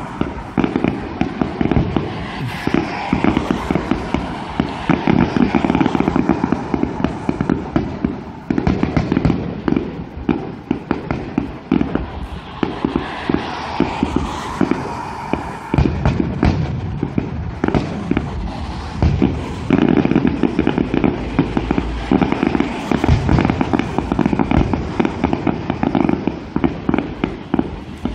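Aerial fireworks display: shells bursting one after another, with bangs and crackling in a near-continuous barrage.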